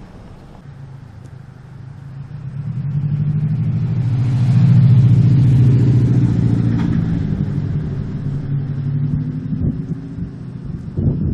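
A car driving past close by: its engine hum swells over a couple of seconds, peaks about five seconds in and slowly fades. A couple of short knocks come near the end.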